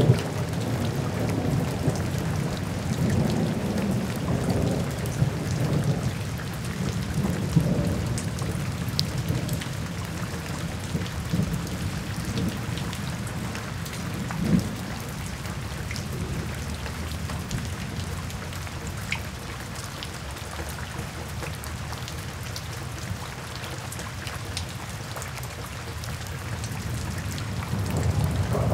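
Steady rain falling on surfaces, with a low roll of thunder that is strongest over the first several seconds, dies down through the middle and swells again near the end. A single sharper knock comes about halfway through.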